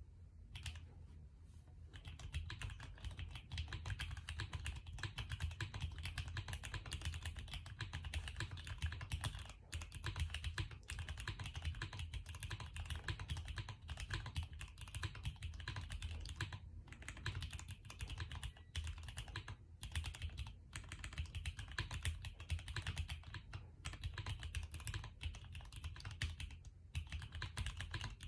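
Mechanical keyboard with lubed MX Brown tactile switches, Durock 63.5 g springs and a polycarbonate plate being typed on: a fast, steady stream of keystrokes that starts about two seconds in and breaks off briefly a few times.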